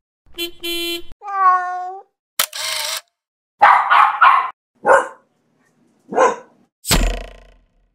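A quick run of separate sound effects: a short held tone and a falling tone, a brief burst of noise, then a dog barking about six times, three quick barks followed by single ones.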